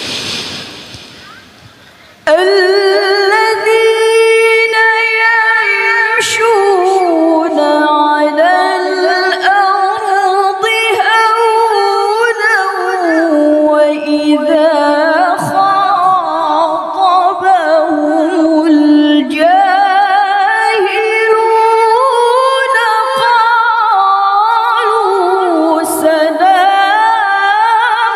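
A woman reciting the Qur'an in the melodic tilawah style. After a brief rush of noise at the start, she holds one long ornamented phrase from about two seconds in, her pitch wavering and climbing and falling in runs.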